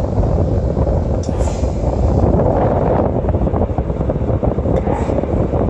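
Air conditioner switched on and running: a loud, steady rush of its fan, with the airflow buffeting the microphone.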